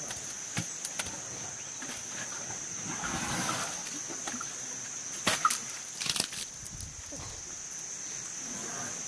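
Wet mud sloshing and splatting as mud is scooped and slapped onto an elephant in a mud pit, with a few louder splats about five and six seconds in. A steady high-pitched insect buzz runs underneath.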